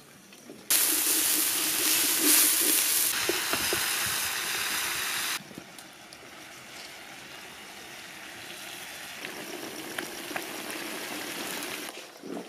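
Loud sizzling hiss of food in a hot pot for about five seconds, starting and cutting off suddenly. Then a quieter steady hiss of a pot boiling over a wood fire, with a few light knocks as a wooden stick stirs it.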